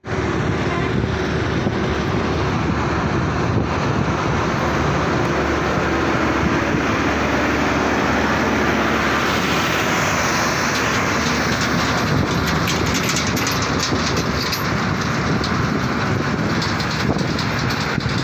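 Steady, dense vehicle noise: a continuous rumbling hiss with a faint crackle in the higher range from about halfway through.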